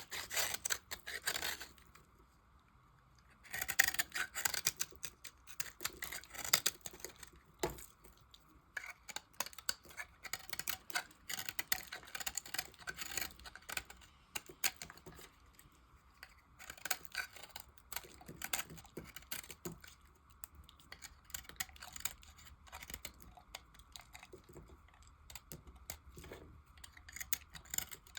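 Knife cutting into soap scraps: rapid runs of crackling clicks as the blade goes through the soap, with a short pause about two seconds in.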